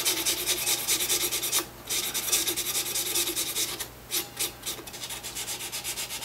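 Quick back-and-forth rasping of a small abrasive tool over an electric guitar's nut as it is dressed down, with short pauses about a couple of seconds in and again near the middle.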